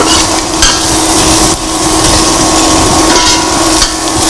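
A metal spoon stirring sliced onions frying in oil in a stainless steel pot, scraping and knocking against the pot a few times. Under it runs a steady electrical hum and crackling distortion, which the uploader puts down to the cook's pacemaker.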